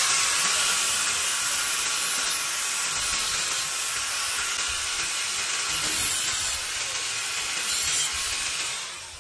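Angle grinder with a thin cut-off disc cutting into steel at a welded-on sprocket, a steady high grinding hiss that swells louder three times as the disc bites harder, then dies away near the end as the cut finishes.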